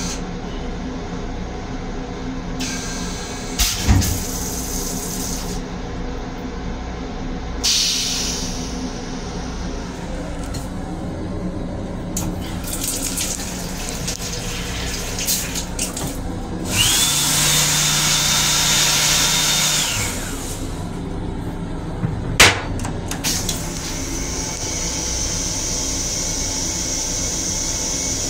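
Inside a Metro-North M7 railcar restroom: the steady low rumble of the railcar, with spells of the sink faucet's water running and a few sharp knocks. In the middle comes a louder whoosh with a steady high whine lasting about three seconds, and a steady hiss runs on near the end.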